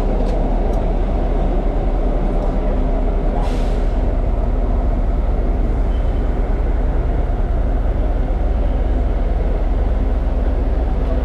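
Airport shuttle bus idling with a steady low engine rumble, heard from inside the bus, with one short hiss of released compressed air about three and a half seconds in.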